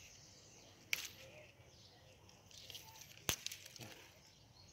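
Flat bean pods being picked off a leafy vine: faint rustling of leaves with two sharp snaps, one about a second in and a louder one a little after three seconds.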